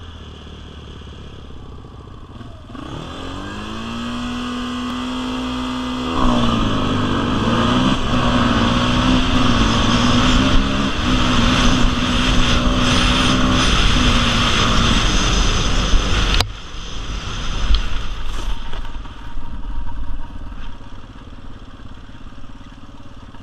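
Yamaha Warrior 350 ATV's single-cylinder four-stroke engine running low at first and revving up a few seconds in. It then pulls hard under throttle with a wavering pitch, drops off sharply about sixteen seconds in, and runs more quietly after that with a few short bursts of throttle.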